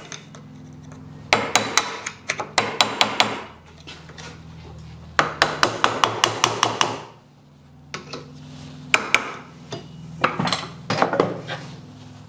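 Hammer tapping a screwdriver against a stuck circlip in a universal joint clamped in a steel vise, driving it loose. Three runs of quick metallic taps, several a second, with short pauses between.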